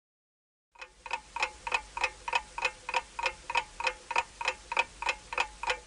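Ticking-clock sound effect for a quiz countdown timer: an even tick-tock at about three ticks a second, starting about a second in.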